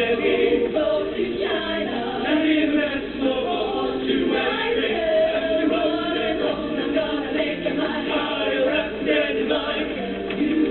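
A vocal ensemble singing in harmony, many voices together and no pauses.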